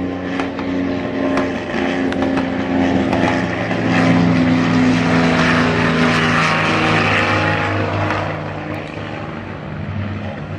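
Propeller aircraft engine droning steadily as the plane passes, growing louder through the middle and fading toward the end.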